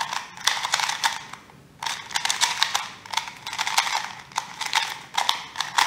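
Qiyi MS 2x2 magnetic speed cube being turned fast in the hands: a rapid run of plastic clicks and clacks as the layers snap round, breaking off for about half a second a little over a second in. The cube feels kind of dry.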